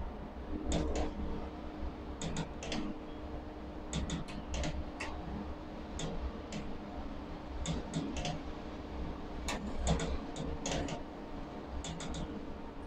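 Steady machine hum and low rumble inside an overhead crane cab, with sharp clicks coming in irregular clusters of two to four.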